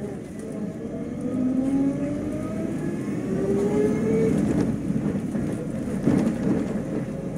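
City bus accelerating, heard from inside the passenger cabin: engine and drivetrain rumble with a whine that rises steadily in pitch for about four seconds, and a few rattles and knocks near the end.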